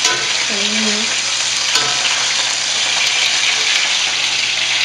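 Chicken pieces frying in a hot wok, a steady sizzle.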